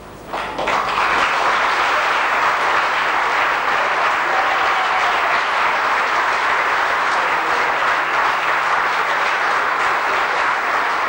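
Audience applause, many hands clapping together; it starts abruptly about half a second in and holds steady at full strength.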